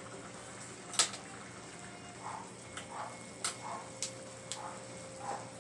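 Wine braising liquid with chicken bubbling at a simmer in a wok, with sharp pops every second or so, the loudest about a second in.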